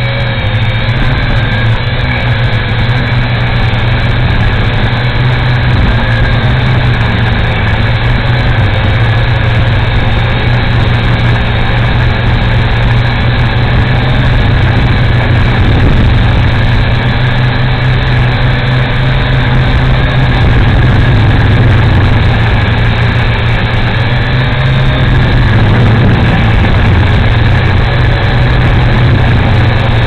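Motors and propellers of a small Altitude 2.0 quadcopter drone whining steadily, recorded up close by its own onboard camera, over a constant low hum. The pitch wavers briefly a few seconds before the end as the throttle shifts.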